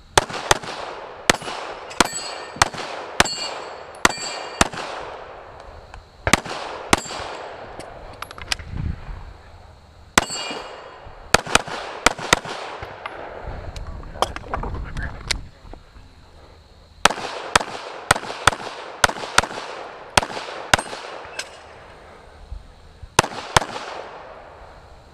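Smith & Wesson M&P9 Pro 9mm pistol firing strings of shots, mostly in quick pairs, with pauses of a second or more between groups; each shot rings out with a short echo.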